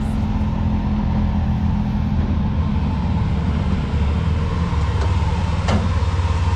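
Polaris RZR side-by-side's engine running at low speed as it is driven up onto a flatbed trailer: a steady low drone that grows stronger about four seconds in, with a single sharp knock near the end.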